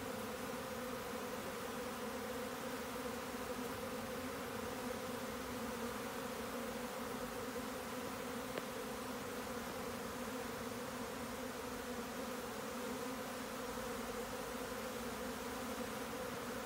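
Steady buzzing hum of a mass of Japanese honeybees flying around their wooden box hive as the colony swarms.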